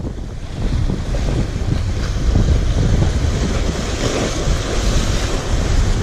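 Sea waves washing and foaming against concrete tetrapod breakwater blocks, with steady wind noise on the microphone.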